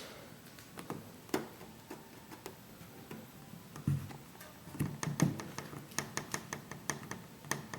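Door handle of a 2012 Jeep Wrangler Unlimited being pushed in and out, giving a string of sharp clicks and knocks that quicken to two or three a second near the end. This is the knocking heard from behind the driver's seat.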